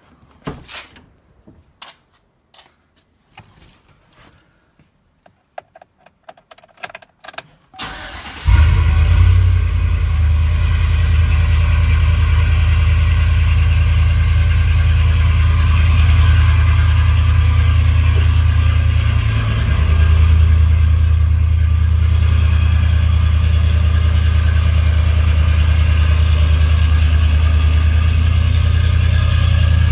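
A series of clicks and knocks, then about eight seconds in the cammed 4.8-litre V8 of a Chevrolet Silverado starts from cold and runs at a steady, deep idle.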